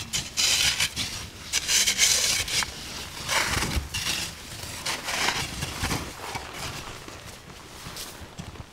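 Digging out the inside of a packed-snow quinzee mound: irregular scraping, crunching strokes into the hardened snow, growing fainter toward the end.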